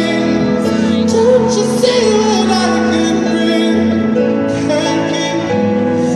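A song with a singing voice over instrumental accompaniment, the voice holding long, wavering notes.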